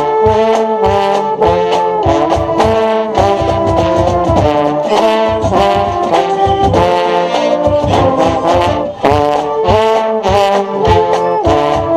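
Marching band brass section playing sustained chords over a steady beat of drum hits, with the mellophones close to the microphone.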